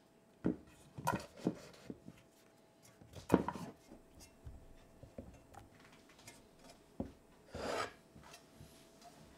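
Halved butternut squash being turned over and set down in a dark metal pan: a series of knocks and bumps against the pan, the loudest about three seconds in, with a short scraping rub near the end.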